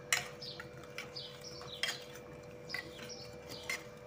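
Steel spoon clinking against a stainless steel bowl while stirring buttermilk, about four sharp clinks. Small birds chirp repeatedly in the background, short falling chirps.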